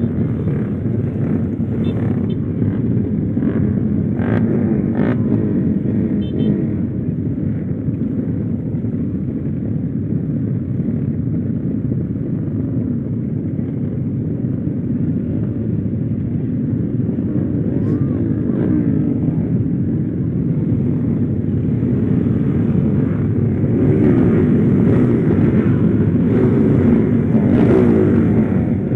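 Motorcycle with a freshly rebuilt engine running under way, engine note and riding noise steady, getting louder over the last few seconds as the engine is worked harder.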